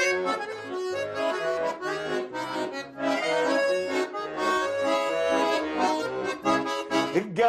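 Accordion playing an instrumental break between sung verses of a Russian folk-style song: a melody over a rhythmic bass accompaniment.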